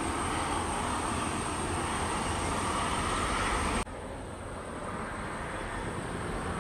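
Turboprop aircraft engines running with a steady noise. About four seconds in, the sound cuts abruptly to quieter engine noise of a Let L-410 Turbolet taxiing.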